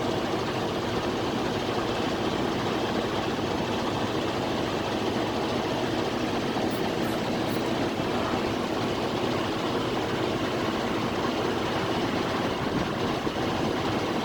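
Freightliner Cascadia semi truck's diesel engine idling steadily while compressed air from the truck's air system flows into a freshly plugged drive tire through an air line, a constant hiss over the engine.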